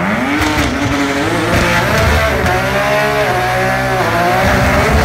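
Nissan R35 GT-R drag car's built 4.3-litre twin-turbo V6 running on methanol, revving hard through the gears during a fifth-gear burnout. Its pitch climbs and drops several times as it shifts, over the rough screech of the spinning tyres.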